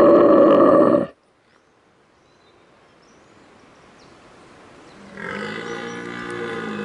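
Rutting red deer stag roars: a loud roar ends about a second in, and after a few seconds of quiet a second, quieter and deeper roar starts near the end.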